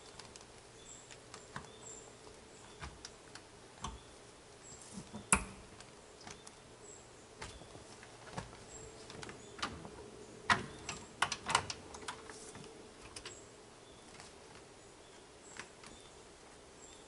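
Scattered light clicks and knocks of gear being handled and moved about at the back of a vehicle. There is one sharper knock about five seconds in and a quick run of knocks a little past ten seconds in.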